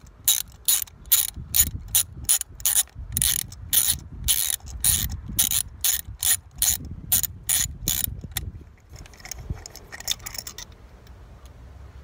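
Hand socket ratchet clicking in an even rhythm, about two to three clicks a second, as a spark plug is unscrewed from a GM 2.0 L LNF turbo engine's cylinder head. The clicking stops about eight seconds in, with a few fainter clicks after.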